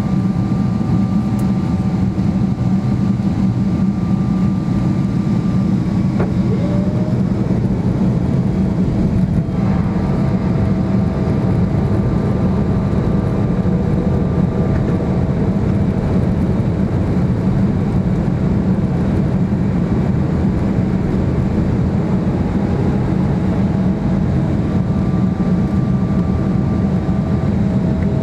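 Steady cabin noise of a Boeing 777-300ER on approach, heard from inside the cabin over the wing: a deep rumble of airflow and its GE90 engines, with faint engine tones that shift in pitch a few times.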